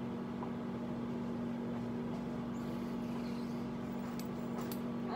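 Steady low electrical hum with faint background hiss, and a few faint clicks.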